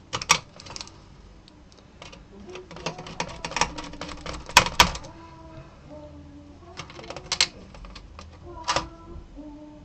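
Screwdriver and screws clicking and tapping against the sheet-metal chassis of an opened LCD monitor as screws are put back in: a scatter of sharp irregular clicks, the loudest a close pair about four and a half seconds in.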